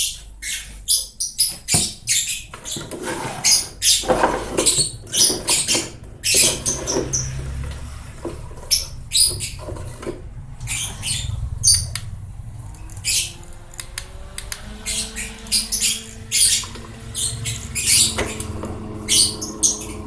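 Scattered short clicks and rattles throughout. About two-thirds of the way in, a small battery desk fan's motor starts up, its hum rising in pitch and then holding steady.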